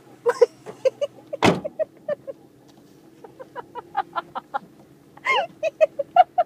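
A single loud bang about one and a half seconds in, amid a run of short, quick animal calls repeated a few times a second.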